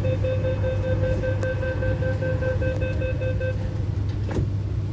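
MTR Q-Train door-closing warning: a rapid series of high beeps for about three and a half seconds, over the steady low hum of the stopped train. A single knock follows about four seconds in.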